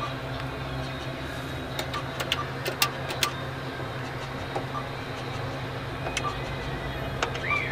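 Cash machine buttons being pressed: a series of sharp clicks, each with a short electronic beep, several in quick succession about two to three seconds in and a few more later, over a steady low hum.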